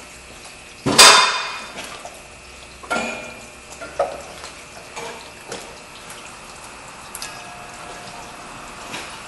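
Metal hand tools clanking in a car's engine bay. A loud clank about a second in rings on briefly, followed by several lighter clinks and knocks roughly a second apart.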